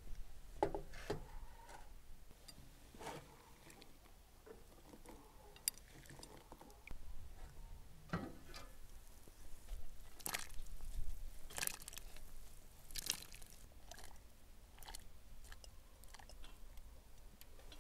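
Scattered knocks and clinks of a cast-iron cauldron and its lid being handled, with a cluster of sharp clinks and wet, squishy splashes in the second half as sliced raw meat is tipped from a glass bowl into the simmering broth.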